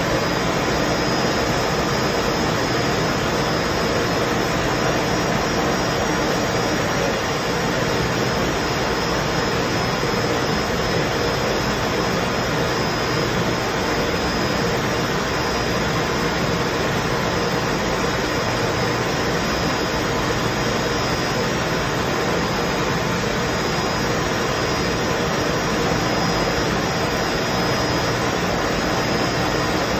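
Plastic blown-film extrusion machine running: a steady, unbroken machine noise with a faint high whine held through it.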